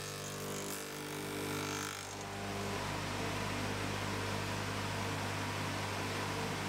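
Tenoner motors running steadily with a mechanical hum and a hiss over it, no cutting heard; about two seconds in the hiss turns broader and fuller.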